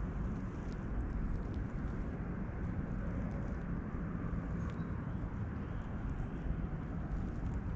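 Steady low wind rumble buffeting the microphone outdoors, with a faint steady hum underneath.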